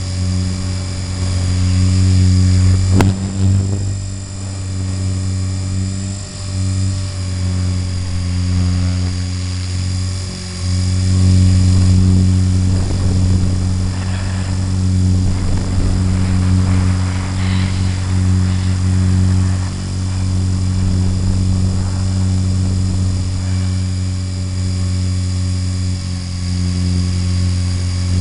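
Radio-controlled helicopter's rotor and motor, heard from its onboard camera: a steady low drone with a high whine above it, swelling and dipping in loudness as the throttle changes.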